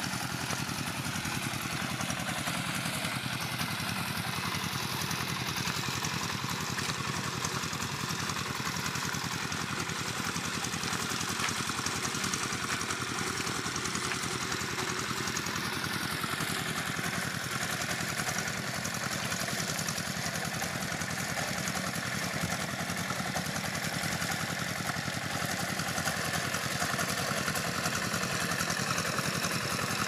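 Small engine of a mini double-drum vibratory road roller running steadily, with a fast, even chug.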